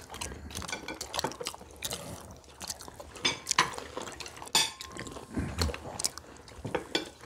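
Chopsticks and forks clicking and tapping on plates, with people chewing food, as a series of scattered light clicks.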